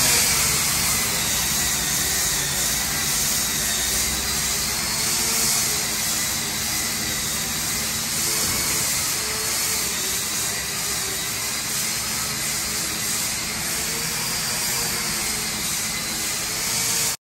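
Handheld electric disc grinder sanding a blue epoxy floor coating, running steadily with its hissing whine and a slightly wavering motor pitch as it is worked over the surface. This is the sanding of the first coat and its touch-ups ahead of the final coat.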